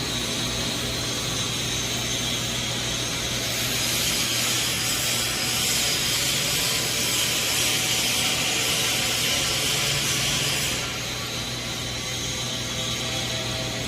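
Plasma keyhole welding arc on 12 mm stainless steel plate: a steady hiss over a constant low hum. The hiss grows louder for about seven seconds in the middle, then drops back.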